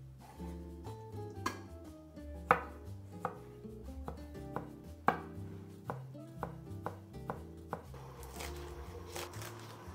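Kitchen knife chopping down onto a bamboo cutting board, cutting raw chicken, garlic cloves and spring onions, one or two sharp chops a second, turning to quicker fine chopping near the end. Soft background music plays underneath.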